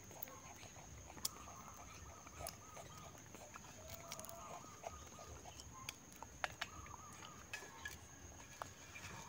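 Faint clicks and small cracks as longan shells are peeled by hand, scattered through the quiet, with faint high calls in the background and a steady thin high whine.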